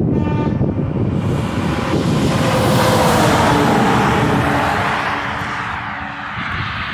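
An SUV driving past close by on a two-lane road, its tyre and engine noise swelling to a peak about three seconds in and then fading as it goes away. A short pitched tone sounds at the very start.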